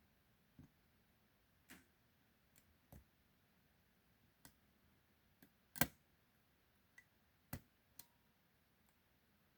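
Lock pick and tension wrench working in the keyway of a 40mm Mi-Lock padlock: about ten faint, irregular metallic clicks and taps, one louder click a little before the middle.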